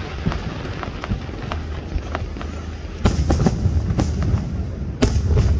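Fireworks bursting: a steady low rumble with light crackling, then from about three seconds in a run of loud, sharp bangs, roughly one a second.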